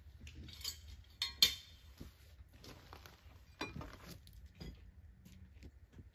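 Small metal hardware clinking and rattling as it is handled, with two sharp clinks about a second and a half in, a knock a little past halfway, and lighter scattered clicks around them.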